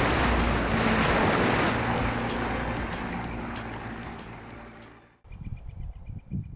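Bass boat running across the water, with its motor steady underneath heavy wind on the microphone and water rushing past the hull. The noise fades gradually, then cuts off abruptly about five seconds in, leaving quieter low knocks and a faint high ticking.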